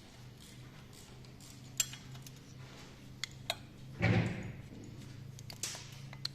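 Scattered metallic clicks and clinks of hand tools and engine parts being handled during an engine teardown, with a louder clunk about four seconds in, over a faint steady hum.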